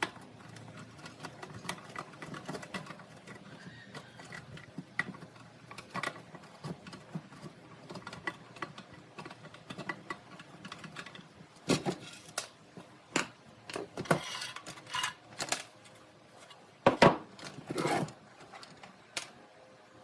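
Workbench handling noises: scattered clicks, taps and scrapes of tools and small parts, with a few louder knocks later on.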